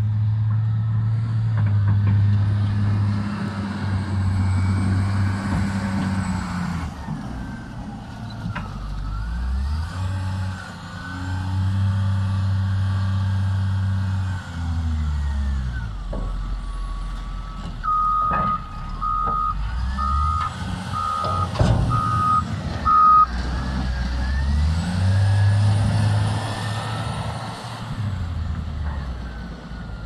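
Cat 950H wheel loader's diesel engine revving up and down as it pushes and lifts snow. About two-thirds of the way through, a reversing alarm beeps six times, about a second apart, and a few sharp knocks are heard.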